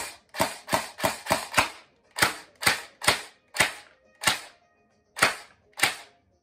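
Battery-powered Golden Eagle Elite Series M4 airsoft rifle firing single shots on semi-automatic, about a dozen sharp cracks in quick, uneven succession with a short pause near the end.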